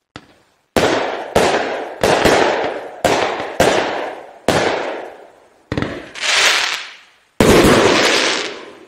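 Decibel Disruptor multi-shot fireworks cake firing: a faint pop, then a run of about eight loud bangs roughly half a second to a second apart, each dying away over the next second. One shot about six seconds in swells up rather than snapping, and the last bang, near the end, rings on longest.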